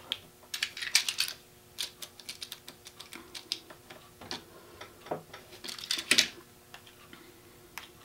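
Box cutter slicing and scraping along the plastic insulation of a two-prong extension cord on a tabletop, to split its two wires apart: irregular clicks and short scratchy strokes, loudest about a second in and again around six seconds.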